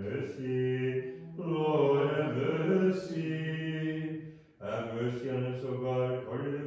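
Men's voices chanting an Orthodox liturgical hymn in long held notes over a low sustained tone, with a short pause for breath about two-thirds of the way through.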